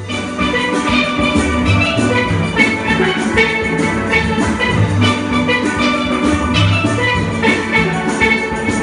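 Lively instrumental music with quick, bright struck notes over a pulsing bass line.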